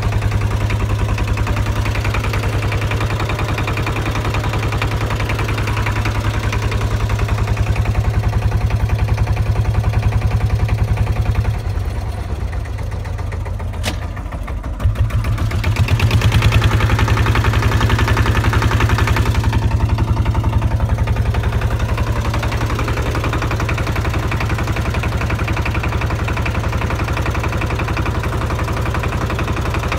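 Small fishing boat's engine running under way with a steady, even low chugging. It eases off for about three seconds near the middle, then picks up again louder.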